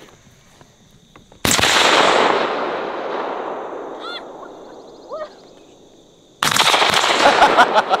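Shotgun shot about a second and a half in, its report rolling away across the field over several seconds; a second shot comes near the end, followed by a rapid clatter.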